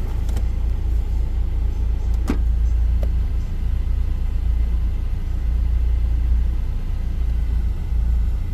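Steady low rumble inside a 1993 Mazda Miata's cabin, with a sharp click about two seconds in and a few faint ticks near the start.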